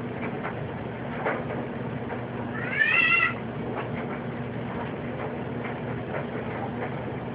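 A single short, meow-like animal call about three seconds in, rising in pitch and then holding, over a steady low hum.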